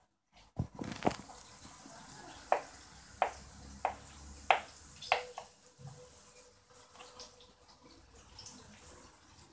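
Kitchen knife chopping boiled eggs on a wooden cutting board: five sharp knocks of the blade on the board, about one every two-thirds of a second, then lighter cuts. A steady hiss runs underneath.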